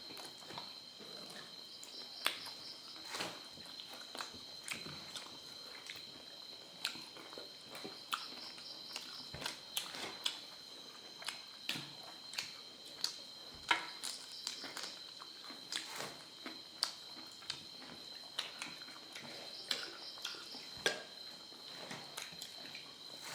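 Close-up eating sounds: irregular clicks and smacks of chewing and handling food, a few a second. Under them runs a steady high insect drone with an occasional pulsing trill.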